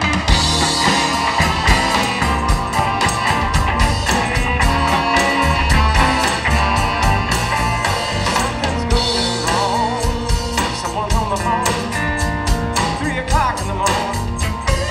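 Live rock and roll band playing: electric guitar over a steady drum beat and bass, with a singing voice.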